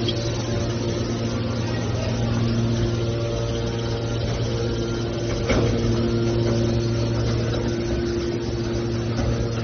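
Small scrap metal baler's hydraulic power unit running with a steady hum, with a single sharp knock about five and a half seconds in.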